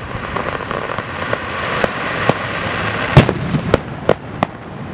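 Fireworks display with aerial shells bursting in a run of about eight sharp bangs, the loudest a little past three seconds in, over a steady hiss.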